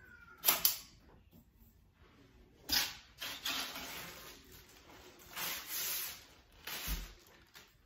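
Handling noises from assembling a collapsible metal frame: a series of scrapes and rustles, with a short thump about seven seconds in.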